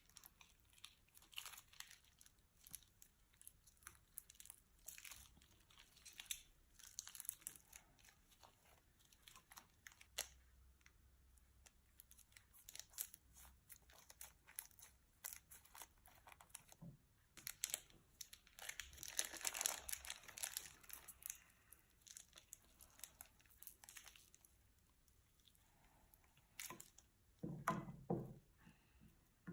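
Slime being worked into plastic bags: soft sticky crackles and small pops from the slime, mixed with crinkling of the bag plastic, with a longer, louder crackly stretch about two-thirds of the way through.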